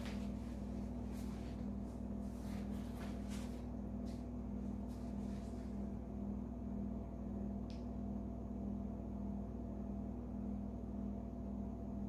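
Steady low hum of room tone, with a few faint short ticks or rustles scattered over the first half and one more about eight seconds in.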